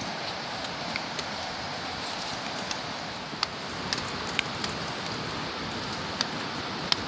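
Steady rainfall hissing, with a handful of sharp, louder drops tapping close by in the second half.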